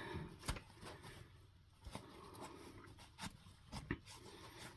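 Faint handling noises: a few light clicks and soft rubbing as spilled oil is wiped off around the engine's oil pressure switch.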